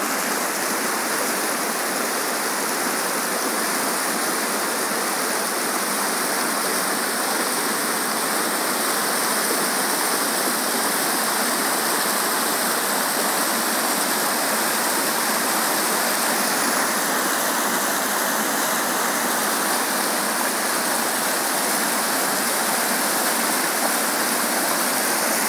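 Fast water churning into white foam, a steady loud rush.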